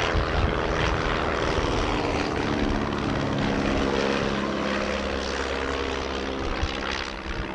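Engine and propeller of the 1932 Arrow Active II, a single-seat aerobatic racing biplane, running steadily as it flies past overhead, fading slightly near the end as it draws away.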